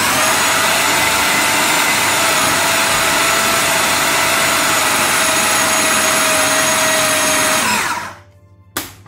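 Food processor motor running steadily under load, with a whining tone, as it mixes thick ground-fish and sago dough. It winds down and stops about eight seconds in, followed by a single click.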